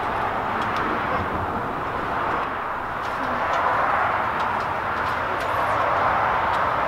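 Steady outdoor background roar that slowly swells and fades over a few seconds, with a few faint small clicks from handling the headlight wiring.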